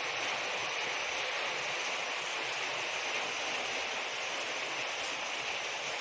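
Steady, even hiss of background noise with no separate sounds standing out.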